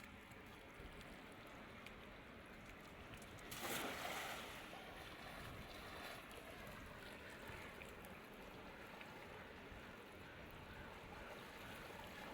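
Faint, steady rush of river water, with a louder rushing swell about three and a half seconds in that lasts about a second.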